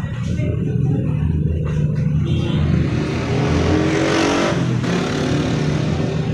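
Vehicle engine running with a steady low drone, its pitch rising a little in the middle.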